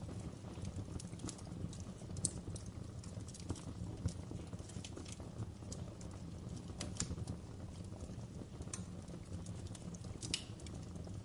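Birch-log wood fire crackling and popping in a fireplace: a steady low rumble of the flames under irregular small crackles, with a few sharper pops scattered through.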